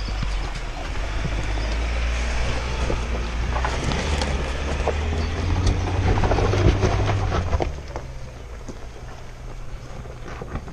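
Ford Ranger Raptor pickup's engine running at low speed as it crawls past over a rocky dirt track. It is loudest about six seconds in, when the truck is close, then fades as it pulls away, with stones crunching and cracking under the tyres throughout.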